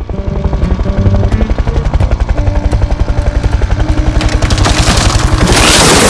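Helicopter rotor beating fast and evenly, about ten beats a second, over background music; about five and a half seconds in, a loud burst of rushing noise swells up over it.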